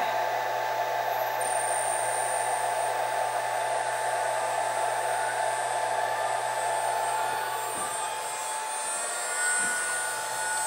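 The Shark HD4 CNC router's 2 hp water-cooled spindle running under its inverter: a very quiet, steady whine with a hiss, like a little dental drill. A thin high whine comes in about a second and a half in as the speed is set at the inverter, and another tone joins near the end.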